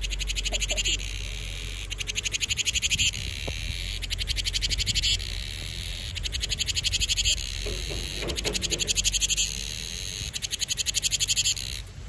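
Cicada singing in repeated phrases: a high, rapidly pulsing buzz about a second long that swells and then cuts off, six times, roughly every two seconds.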